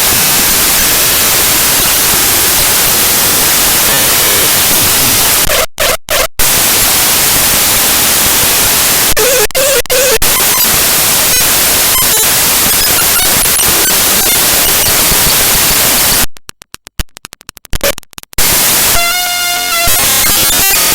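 Raw binary file data from an image file played directly as audio: loud, harsh digital static that cuts out in clicking dropouts about six seconds in and again about sixteen to eighteen seconds in, then turns briefly into a buzzing pitched tone before the static returns.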